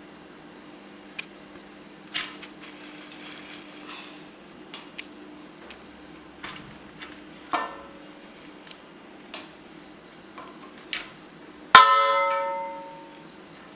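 A metal utensil clinking and knocking against a large metal cooking vessel as cooked rice is spooned in. There are light clicks throughout, a short ringing knock about halfway through, and one loud ringing clang near the end that fades over a second or so.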